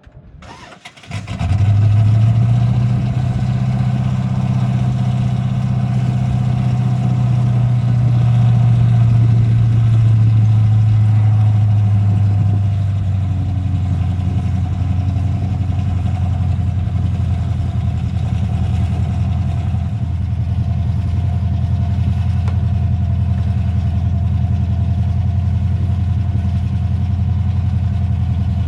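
A vehicle engine starts about a second in and then idles steadily. About twelve seconds in the idle settles a little lower.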